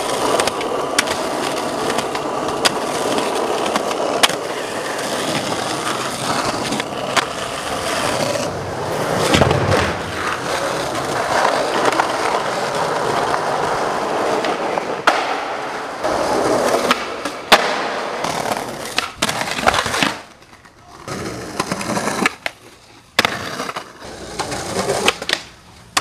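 Skateboard rolling, a steady noise of the wheels on the ground with sharp clacks of the board striking down now and then. After about twenty seconds the rolling comes in short runs with quiet gaps between them.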